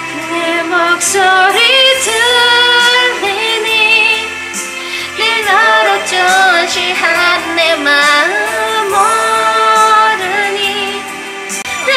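A woman singing a slow Korean pop ballad into a handheld karaoke microphone over a backing track, her voice gliding between held notes.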